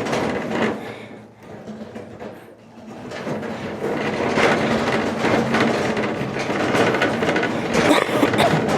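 Objects being shifted and dragged about in a crowded shed: irregular scraping, knocking and clattering, quieter for a couple of seconds about a second in.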